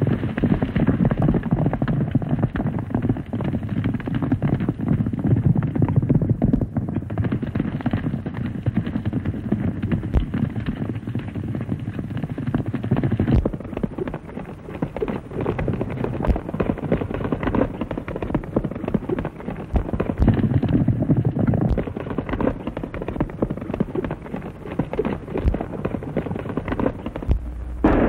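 Horses galloping hard: a fast, dense run of hoofbeats on a dirt trail, heard on a 1930s film soundtrack.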